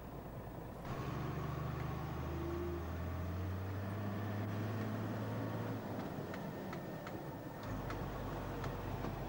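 Diesel engine of a milk tanker lorry heard from inside the cab while driving, a steady low drone that starts abruptly about a second in. The engine note changes near the end, with a few light ticks just before.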